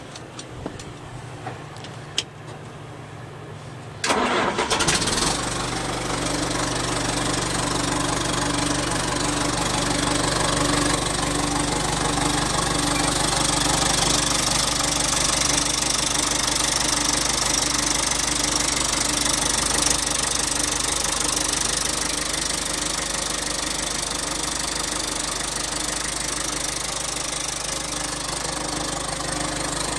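Cold start of a 1995 John Deere 450G crawler dozer's diesel engine: after a few seconds of quieter low humming, the engine catches suddenly about four seconds in and settles into a loud, steady idle.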